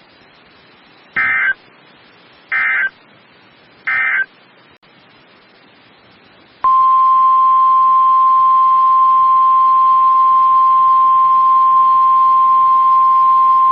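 Three short warbling bursts of SAME digital data, about a second and a half apart, the end-of-message code of an emergency alert, then a loud steady single-pitch alert tone near 1 kHz, the NOAA Weather Radio 1050 Hz warning alarm tone, starting about six and a half seconds in and held on.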